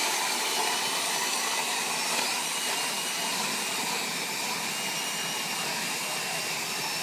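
Cordless drill spinning an ice auger, boring through the ice: a steady motor whine over a continuous rushing noise, the whine sinking slightly in pitch as it goes.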